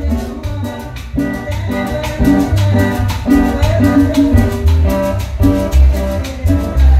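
A chanchona band is playing: a Salvadoran folk ensemble of violins, a large upright bass and percussion. The tune has a steady, danceable beat over a heavy, repeating bass line.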